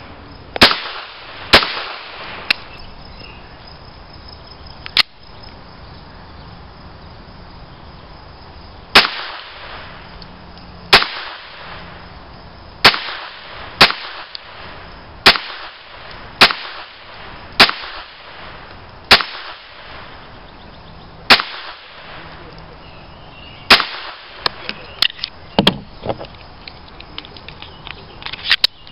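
Walther P22 .22 pistol firing a string of single shots, sharp loud cracks about one every one to two seconds, with a pause of several seconds between the first few shots and the rest.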